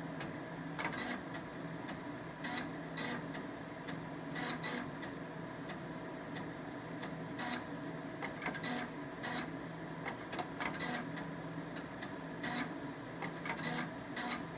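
QumeTrak 842 8-inch floppy drives working through a file copy: irregular clicks and short buzzes as the stepper-driven heads seek, coming in clusters every second or so over a steady hum. The seeks come more often as the heads move further out across the tracks while the disk fills up.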